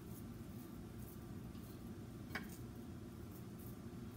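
Faint soft squishing of raw hamburger meat being pressed into a patty by hand, with one light click about two and a half seconds in, over a steady low hum.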